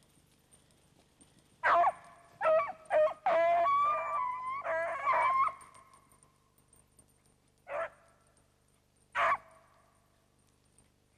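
Beagle hounds baying on a rabbit hunt. A few short barks come about two seconds in and run into one long drawn-out bay, followed by two single barks near the end.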